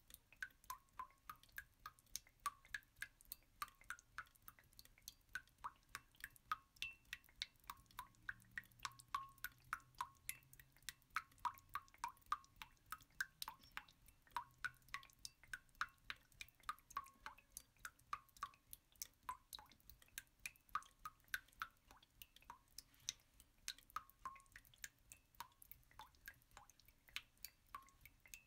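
Faint, irregular drip-like plinks, about three or four a second. They run on unchanged through the picture cuts, so they are a laid-on background track rather than sound from the pan.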